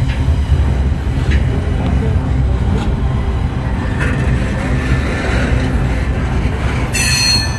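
Norfolk Southern double-stack intermodal freight train rolling past close by: a steady low rumble of well-car wheels on the rails with a few sharp clicks. Near the end comes a brief high-pitched sound.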